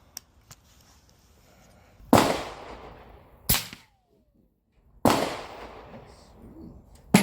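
Several suppressed rifle shots from a Rossi LWC single-shot break-action rifle in .300 Blackout with a Banish 30 suppressor, firing subsonic 200-grain Winchester Super Suppressed ammunition. Each shot is a sharp crack with a short fading tail, and they are spaced a second or more apart.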